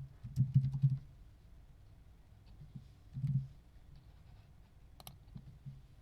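Handling noise: soft low knocks and sharp clicks, bunched in the first second, with another knock about three seconds in and a few more clicks near the end.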